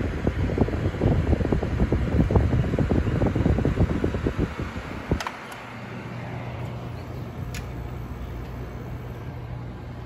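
Friedrich XStar window air conditioner running, its fan blowing air that buffets the microphone with an irregular low rumble. About halfway through there are a couple of sharp clicks, the air rush falls away, and a steadier, quieter low hum from the unit remains.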